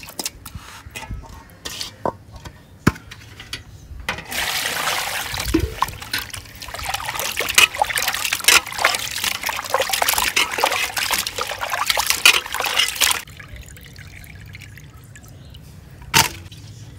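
Pieces of ribbon fish being washed by hand in a bowl of water: a few light knocks, then from about four seconds in a long stretch of splashing and sloshing that stops a few seconds before the end, followed by a single knock.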